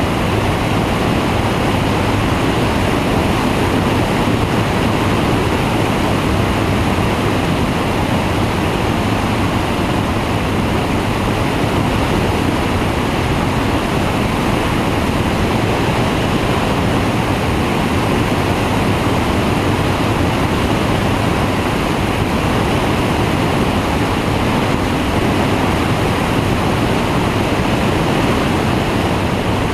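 Flexwing microlight trike in cruise flight: a steady rush of airflow and wind on the microphone, with the low, even drone of the pusher engine and propeller beneath it.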